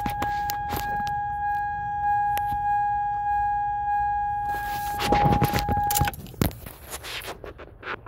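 Steady electronic buzzer tone from the car's key-in-ignition reminder, sounding with the key turned to ACC, which cuts off suddenly about six seconds in. Clicks, knocks and a rustle of the key and a pen being worked at the ignition lock cylinder run under it.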